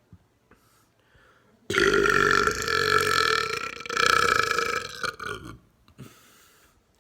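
A man's long, loud belch of about four seconds, starting almost two seconds in, with a brief dip partway through before it tapers off; it is brought up from air swallowed on purpose. A short breathy sound follows about a second later.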